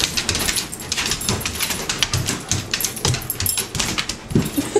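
Several dogs scrambling on a hardwood floor: fast, irregular clicking and scratching of claws on the wood, with a few dull thumps of paws.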